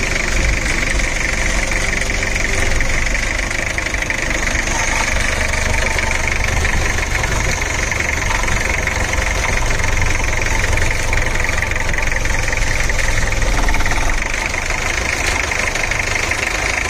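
Rebuilt Nissan R2 engine running at a steady idle.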